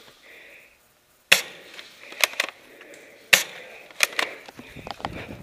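Sharp clicks and snaps of spring-powered airsoft guns in play, about six of them over three seconds. The loudest comes about a second in, right after a brief dropout, and another past three seconds.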